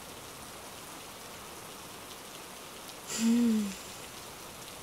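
A woman's short hum, slightly falling in pitch, with a breath at its start about three seconds in, over a steady hiss.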